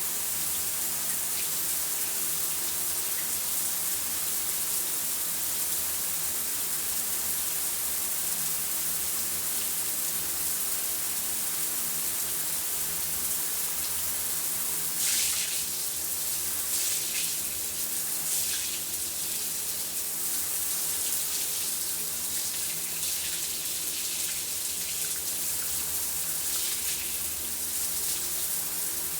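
Shower running: a steady hiss of water spray, with brief louder splashing patches about halfway through and again near the end.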